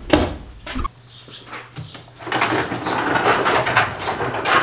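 A metal wood-stove door shutting with a clunk, then footsteps and a wheeled cart crunching over a floor of bark and wood chips from about two seconds in.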